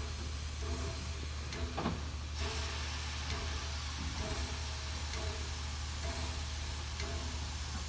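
Steam locomotive standing in steam, hissing steadily over a low hum, with a soft repeating beat about once a second. A brighter burst of hiss cuts off sharply about two seconds in.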